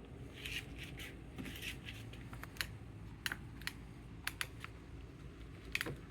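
EGO LM2110 battery lawnmower making the clicking sound: about a dozen sharp clicks at uneven intervals, some in quick pairs, over a faint steady low hum.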